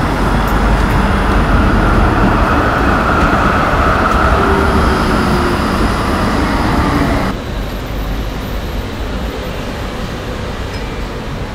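Tram pulling along the platform: a steady rumble of wheels on rails with a faint motor whine that sinks in pitch as it slows. About seven seconds in, the sound drops suddenly to a quieter rumble.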